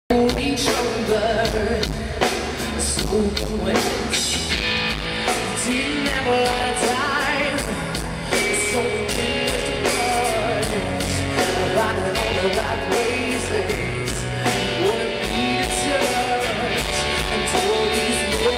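Live hard rock band playing loud: distorted electric guitars over a steady drum kit beat.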